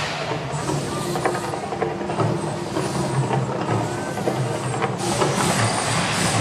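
Steady roar and rumble of the Mirage volcano fire show, with a hiss that grows louder about five seconds in.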